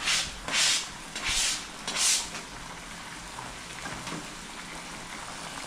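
Chicken curry in a pan being stirred after chopped coriander and spring onion go in: four short hissing strokes in the first two seconds, then only the low steady sound of the pan cooking.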